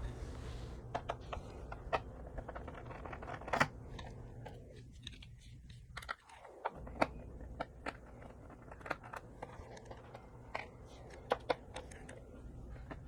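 Irregular small clicks and taps of a screwdriver working screws out of a laptop's plastic base, with the parts being handled, over a faint low hum.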